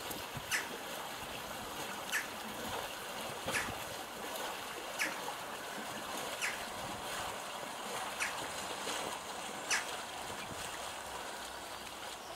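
Pedal-driven drive of a home-built barrel-and-pallet canal boat churning the water: a steady splashing and trickling, with a short sharp slap about every second and a half.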